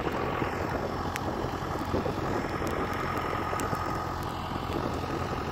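Tractor engine running steadily, with a low, even hum.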